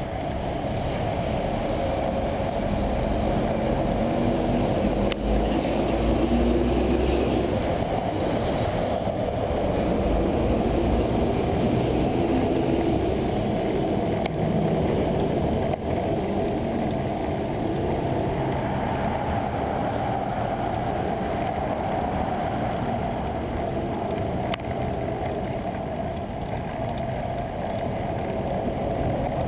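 Steady wind and road noise from a moving bicycle, heard from a camera mounted on the bike, with city motor traffic mixed in. A faint engine hum comes through between about 4 and 8 seconds in.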